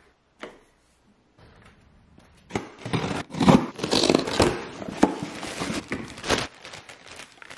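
Cardboard shipping box being cut open with scissors along its taped seam, the flaps pulled back, then a plastic poly bag crinkling as clothing is pulled out. The cutting and rustling is loudest through the middle and softens near the end.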